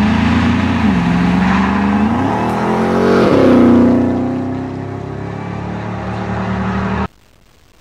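A 2004 Ford F-150 SVT Lightning's supercharged V8 and a 2006 Pontiac GTO's LS2 V8 at full throttle in a drag race from a roll: engine pitch climbs, drops back briefly twice as they change gear, and peaks loudest as they pass at about three and a half seconds. The sound then fades as they pull away and cuts off suddenly about seven seconds in.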